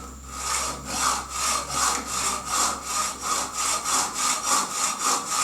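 Hand saw cutting through a rod to make pins, with steady back-and-forth strokes at about two and a half a second.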